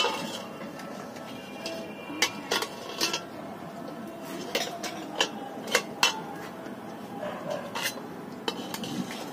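Metal spoon and ladle clinking and scraping against a large metal kadhai of frying oil, a dozen or so sharp, irregularly spaced clinks.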